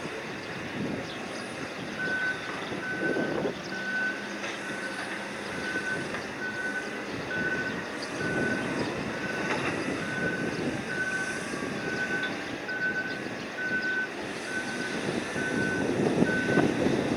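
Electronic warning beeper of a quayside vehicle or crane, a single steady tone sounding about twice a second. It starts about two seconds in and stops just before the end, over a continuous rumble of machinery and wind.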